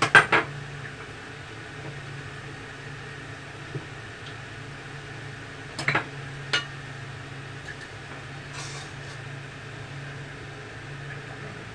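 A metal slotted spatula knocks and scrapes against a wok: a quick cluster of clinks at the start and two more about six seconds in, over a steady low kitchen hum.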